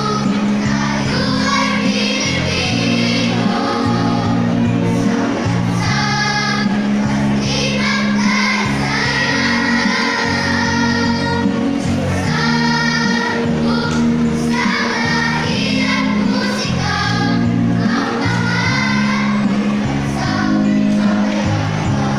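Children's choir singing together over a steady instrumental accompaniment, in a choral singing contest piece.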